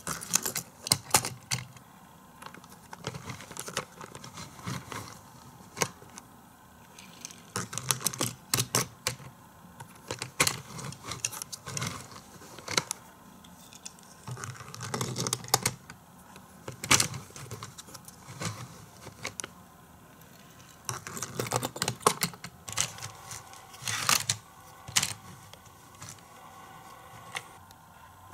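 Hot Wheels die-cast toy cars running through a plastic playset. Irregular sharp plastic clicks and clacks, broken by short rattling runs of cars rolling down the track.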